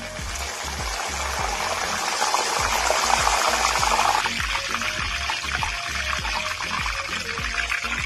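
Curry leaves, with sliced shallots and garlic, deep-frying in hot oil: a dense sizzle full of small crackles and pops that swells over the first few seconds as the fresh leaves hit the oil, then keeps on steadily. Background music plays underneath.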